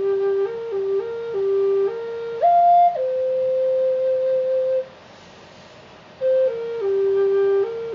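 A flute playing a slow solo melody in stepwise held notes, with one long sustained note in the middle, then a pause of over a second before the tune picks up again.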